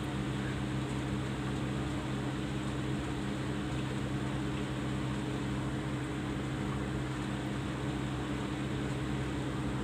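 Steady machine hum with a constant hiss and a few held low tones, unchanging throughout.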